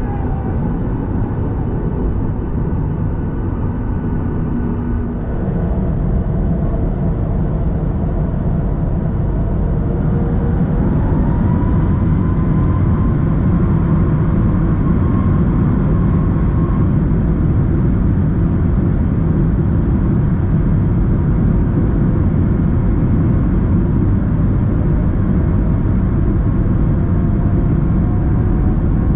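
Boeing 737 MAX 8's CFM LEAP-1B turbofan engines heard from inside the cabin, running up to full takeoff power. About ten seconds in, a whine climbs in pitch and the engine noise and deep rumble grow louder, then hold steady through the takeoff roll.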